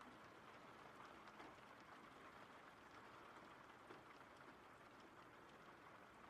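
Faint, steady rain ambience with scattered small drop ticks, an even hiss that does not change.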